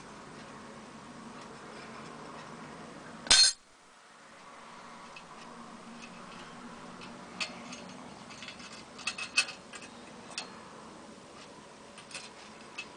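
Mk 4 steel spring vermin trap snapping shut on a wooden stick pushed onto its trigger plate: one loud, sharp snap about three seconds in. Later a few light metallic clinks follow as the sprung trap is handled.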